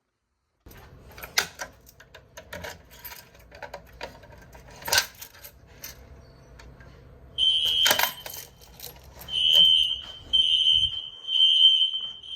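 Fire alarm sounding a high beeping tone in repeated short blasts, starting a little past halfway. Before it there are scattered clicks and a few sharp loud clicks.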